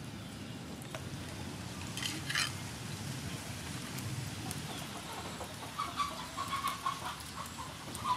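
A hen clucking in a run of short repeated notes from about six seconds in. Two sharp knocks come about two seconds in.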